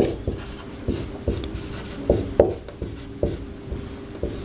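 Marker pen writing on a whiteboard: a run of short, irregular strokes and taps as a word is written out.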